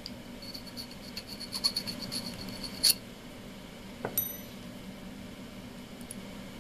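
A small round metal file rasping in quick strokes inside a drilled hole in an aluminium bar, deburring the hole, for about two and a half seconds and ending in a louder stroke. A little over a second later comes a single sharp metallic clink with a brief ring.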